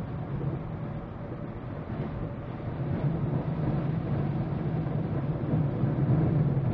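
Inside a vehicle's cabin while driving through floodwater across the road: a steady rush of water spray and waves hitting the body and windshield over the low drone of the engine and tyres, growing louder in the second half.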